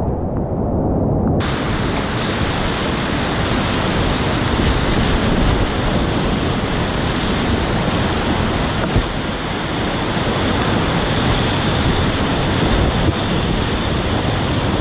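Whitewater rapids rushing steadily around a kayak. For about the first second and a half the sound is muffled as water washes over the camera, then the full roar of the river comes through.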